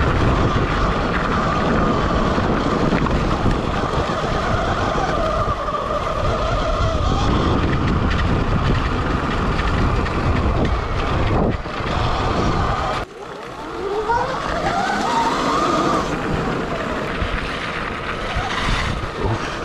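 Sur-Ron electric dirt bike being ridden: a thin, steady motor whine under loud rushing noise. About two-thirds in, the sound dips sharply, then the whine slides up and down in pitch as the bike speeds up and slows.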